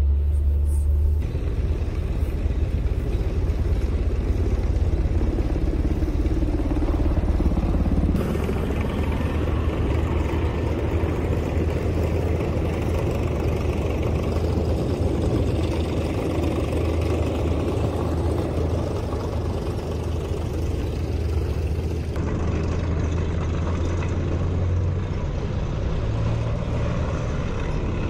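Steady low rumble of a moving military vehicle's engine and road noise, heard from the vehicle as it drives along the road.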